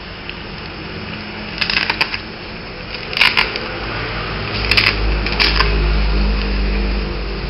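Reusable laminated word stickers being peeled off and pressed onto the paper pages of a ring-bound activity book, in four short crackly bursts, with a low hum underneath that grows louder about halfway through.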